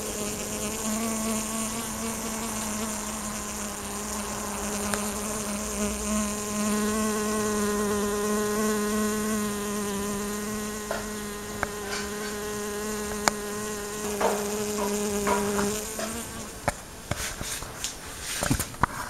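A bee buzzing in flight close to the microphone: a steady hum that stops a few seconds before the end, with a few light clicks scattered through the later part.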